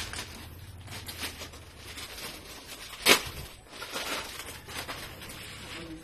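Plastic bags rustling and crinkling as they are handled, with small clicks and one sharp knock about three seconds in.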